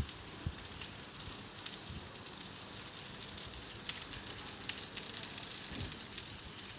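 Rain falling steadily: an even hiss with many small drop ticks, and a few dull low thumps.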